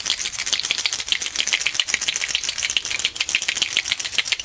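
A bottle of auto-glass primer being shaken hard, its mixing ball rattling rapidly against the glass, many clicks a second; the shaking stops abruptly at the end.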